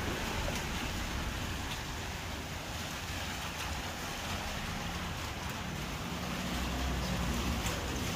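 Steady heavy rain falling, an even hiss, with a low hum building toward the end.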